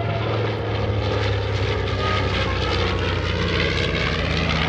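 A North American B-25 Mitchell flying past, its two Wright R-2600 radial engines and propellers running with a steady, loud drone.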